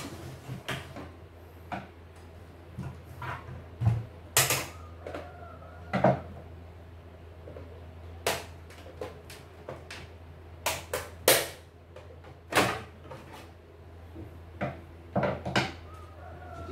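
Irregular clicks and knocks of a CNY E900 embroidery machine's plastic casing, a screwdriver and screws being handled and set down on a wooden workbench as the case is taken apart, a dozen or so sharp ones in all. A steady low hum runs underneath.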